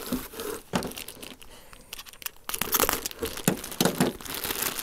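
Plastic wrapping crinkling in irregular crackles with a few sharper clicks as a small boxed electronic unit is unwrapped by hand.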